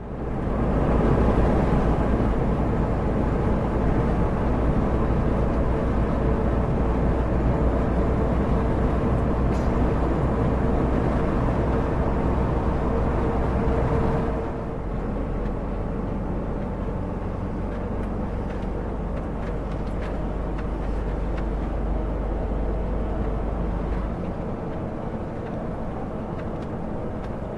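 Inside the cab of a DAF XF105.460 truck on the move: the six-cylinder diesel's steady drone with road and tyre noise and a steady hum. About halfway through the sound drops a little in level and the hum goes away.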